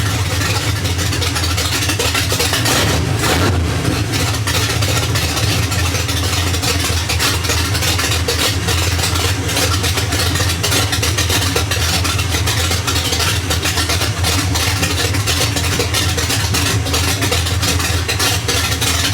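1979 Chevrolet C10 truck engine running steadily through open headers with no exhaust pipes fitted, its exhaust coming straight out of the headers.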